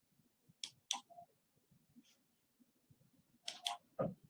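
Faint clicks in a quiet small room: two close together under a second in, then a short cluster near the end, the last with a soft low thump.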